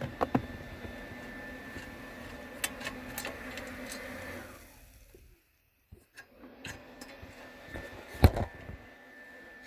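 Scattered clicks and knocks of a screwdriver and screws being handled during hand work under a car's dashboard, with one sharp knock near the end. A steady background hum fades out around halfway.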